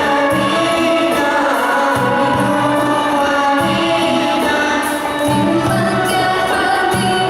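Live band music with voices singing a song, over a repeating bass pattern.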